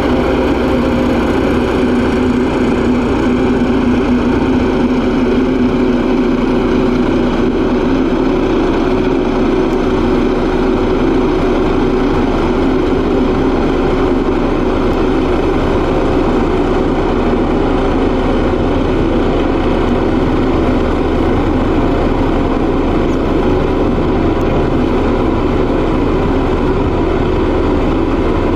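Diesel engine of a single-drum vibratory road roller running steadily and loudly at an even speed as the roller drives over compacted gravel.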